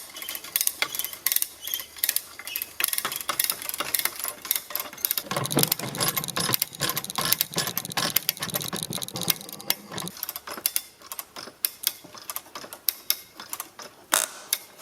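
Hand come-along cable puller being cranked, its ratchet pawl clicking rapidly and unevenly as it stretches a slack fence wire tight.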